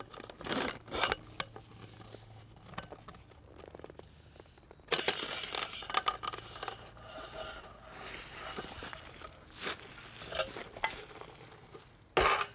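An old lamppost being worked loose and pulled out of the ground: a few metal clanks, a longer stretch of scraping about five seconds in, more knocks, and a loud short clatter near the end.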